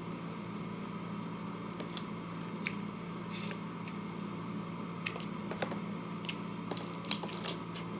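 A person eating close to the microphone: scattered short, wet chewing and mouth clicks, over a steady low hum.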